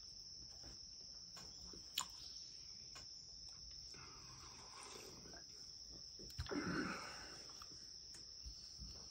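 Insects droning steadily at one high pitch, faint. A single click comes about two seconds in, and a brief louder noise about two-thirds of the way through.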